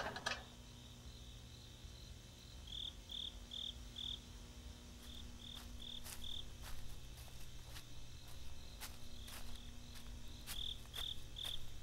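Crickets chirping in the night, in short groups of three or four quick chirps with pauses between, over a low steady hum and a few faint clicks.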